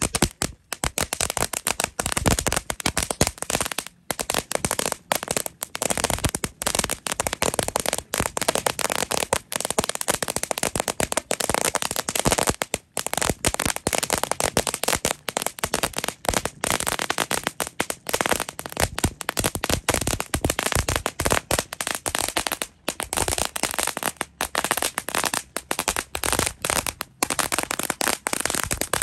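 Several Cajun Crackler noisemaker fireworks going off together, a dense, rapid run of sharp firecracker-like cracks and pops with only brief lulls.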